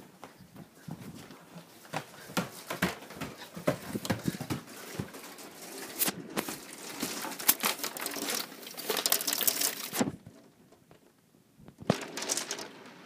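Hailstones pelting the house in a dense, irregular clatter of sharp taps and clicks, growing heavier partway through. The taps break off almost to quiet for about two seconds near the end, then start again.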